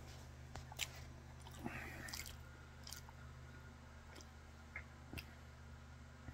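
Faint small wet mouth clicks and lip noises close to the microphone, a handful of separate ticks spread over several seconds, over a steady low electrical hum.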